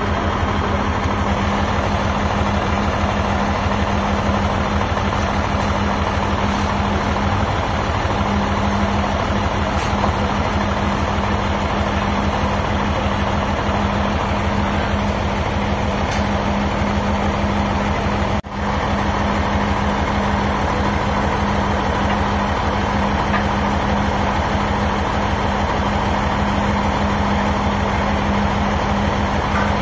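An engine running steadily at a constant speed, a deep even hum with fast regular pulsing and no revving, briefly cutting out once about eighteen seconds in.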